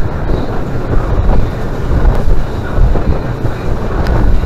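Small fishing boat running at speed: a loud, uneven rumble of wind buffeting the microphone over the noise of the engine and the hull through the water.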